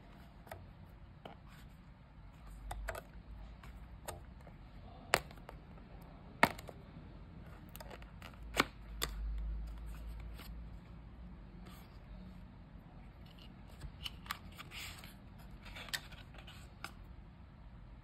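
Hands unboxing a small white paperboard box for an Apple 20W USB-C power adapter: the clear tape seal peeled off, the top flap opened and the inner sleeve slid out. Scattered light clicks, taps and paper rustling, with a few sharper clicks and low bumps on the table.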